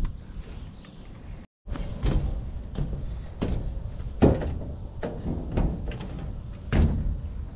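Footsteps on a corrugated sheet-metal roof: a series of dull thumps and rattles from the panels underfoot, the loudest about four seconds in and again near the end. The sound drops out briefly about one and a half seconds in.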